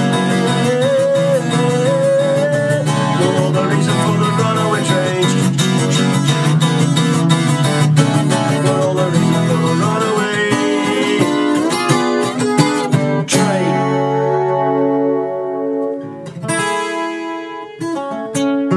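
Acoustic guitar strummed steadily; about thirteen seconds in the strumming stops and a final chord rings on, followed by a few single plucked notes near the end as the song closes.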